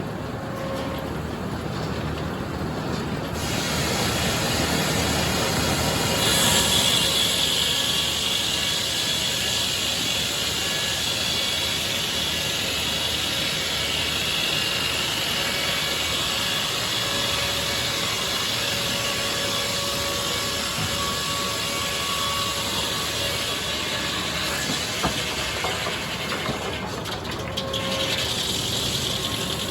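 Sawmill saw cutting through a red oak log: a steady mechanical noise with a hissing high edge. The hiss comes in about four to six seconds in and eases off near the end.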